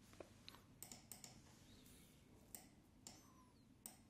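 Near silence broken by about seven faint, sharp clicks at uneven intervals, the sound of computer mouse clicks.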